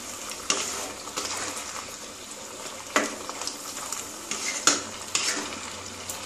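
A spatula stirs and scrapes through chunks in a thick sauce in a non-stick kadai, knocking sharply against the pan about five times. Under it runs a steady sizzle of the sauce, thickened with cornflour, cooking down.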